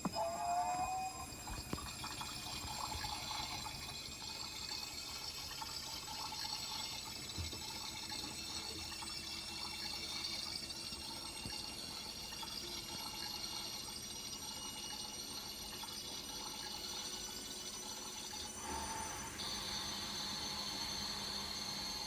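Infanbebe My First Dishwasher toy playing its electronic running-water wash sound through its small speaker, a steady hiss. It opens with a short rising electronic tone, and the hiss changes character near the end.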